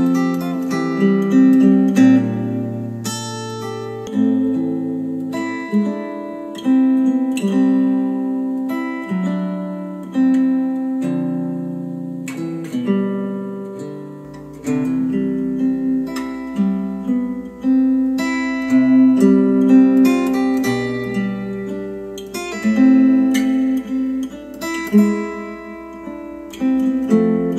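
Acoustic guitar music played back through a pair of KEF R3 bookshelf speakers and picked up by a microphone in the room. About halfway through it cuts to the speakers driven by another amplifier, and a faint low hum comes in under the music.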